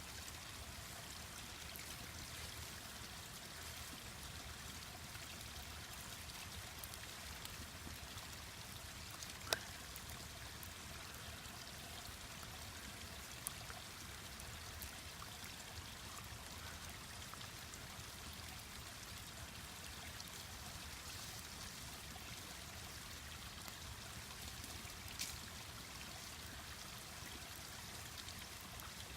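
Mountain stream running with a steady rushing babble. A wood fire gives a few sharp pops over it, the loudest about ten seconds in.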